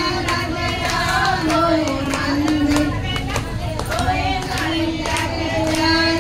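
A woman sings a devotional bhajan to the goddess Durga through a microphone, in long held, gliding notes, with hands clapping a steady beat along with her.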